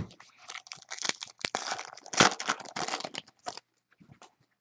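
Wrapper of a basketball trading-card pack crinkling and tearing as it is ripped open by hand, in a run of quick crackles that stops about a second before the end, with a click at the start.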